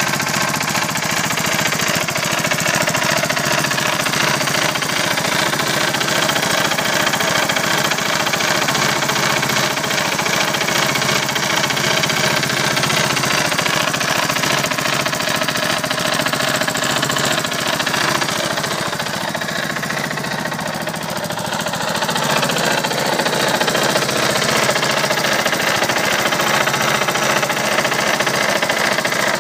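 Suzuki Savage LS650's single-cylinder four-stroke engine running with a fast, even knocking beat. It drops a little in level about two-thirds of the way through, then comes back up.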